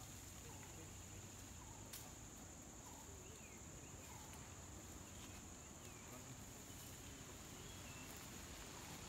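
Faint background: a steady high-pitched insect drone, with a few faint chirps and a single click about two seconds in.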